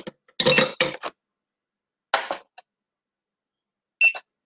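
A few short bursts of kitchen handling noise, clattering and rustling as things are moved on the counter. Near the end there is a brief crinkle as a plastic packet of dried fruit is picked up.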